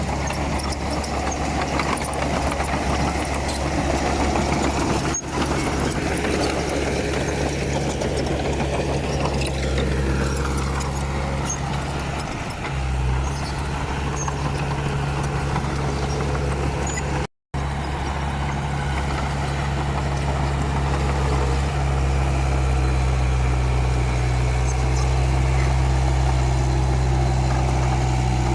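Komatsu D31P bulldozer's diesel engine running steadily, with a mid-range working rumble over a low engine drone. The sound drops out for a split second about two-thirds of the way through.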